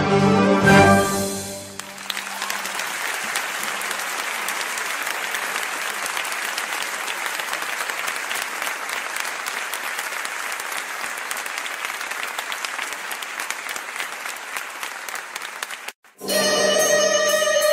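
Applause, many hands clapping steadily for about fourteen seconds, between stretches of background music. The music fades out early, and after a brief silence it starts again near the end.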